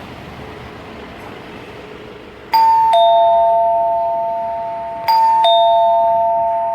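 Electric gate bell chiming a two-tone ding-dong twice, a higher note then a lower one, each note ringing on and slowly fading: the bell is working again on its newly replaced push switch.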